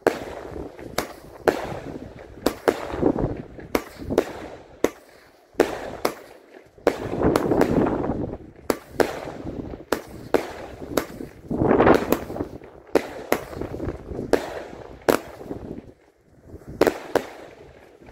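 Watt Imaginator, a 19-shot 25 mm consumer firework battery, firing: a rapid, irregular string of sharp bangs from the shots launching and bursting, about two to three a second, with noisy stretches of crackling between them.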